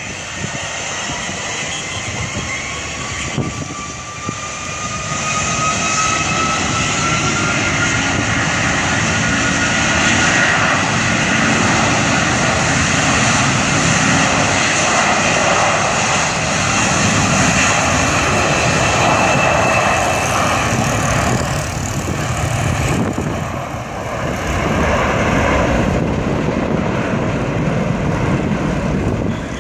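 Airbus A330-300 turbofans spooling up to takeoff thrust on the takeoff roll: a whine rising in pitch over the first ten seconds under loud, steady jet engine noise, which stays loud as the airliner accelerates down the runway.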